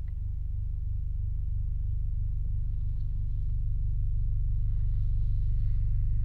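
Recording of a group of about thirty people toning together: a low, steady drone of many voices held on one tone, pulsing slowly where the voices beat against each other, and gradually growing louder.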